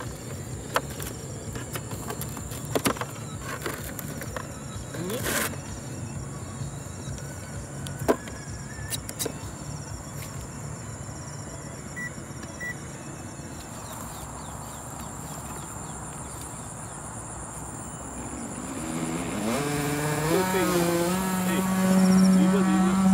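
Steady low outdoor hum with scattered clicks and knocks while the RC jet ski is handled. About 19 seconds in, the jet ski's electric motor and water-jet drive spin up into a rising whine that wavers in pitch, then holds as a loud steady whine near the end as it runs on the water.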